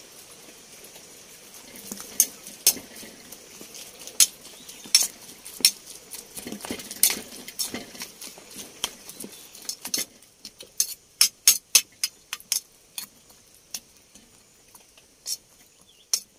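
Spoon clinking and scraping against a dish in irregular taps while shrimp-paste chili dip (nam prik kapi) is mixed, with quicker clinks in the second half.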